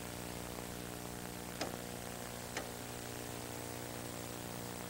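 Steady electrical mains hum with background hiss, broken by two faint clicks, about a second and a half in and again a second later.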